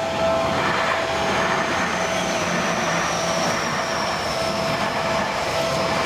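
Electric commuter train passing over a level crossing, its wheels and running gear making a steady rush with a thin high whine that falls slowly in pitch as it slows. The crossing's warning bell keeps ringing underneath.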